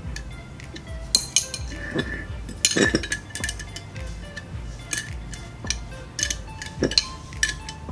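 Irregular metallic clinks and clicks of a 13 mm wrench on the bolts and metal brackets of a turbocharger housing as they are tightened, with background music.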